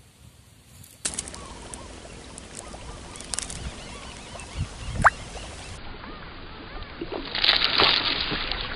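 A soft frog lure gurgling and plopping as it is retrieved across the water surface. Near the end there is a loud splash as a snakehead strikes the lure.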